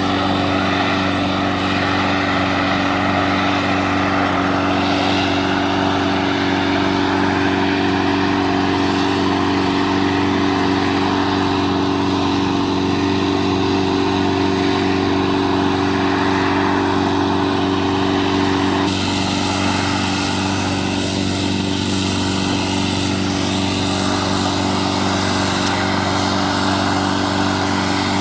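A small engine running steadily at a constant speed, its note shifting slightly about two-thirds of the way through.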